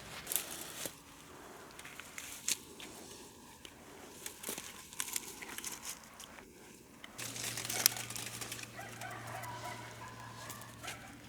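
Irregular crinkling and rustling handling sounds with scattered light clicks. A low steady hum comes in about seven seconds in.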